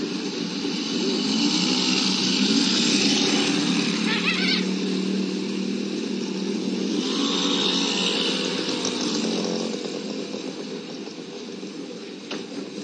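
A small engine running steadily nearby. It grows louder over the first couple of seconds and eases off near the end, with a brief click just before the end.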